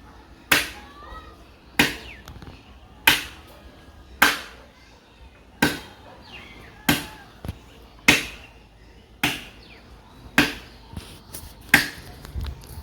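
A tree trunk being chopped by hand: ten sharp, evenly paced blade strikes into hard wood, about one every 1.2 seconds.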